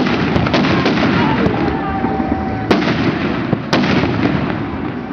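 Fireworks going off in a continuous crackling barrage, with several sharp bangs of exploding shells, the loudest about two and a half and three and a half seconds in.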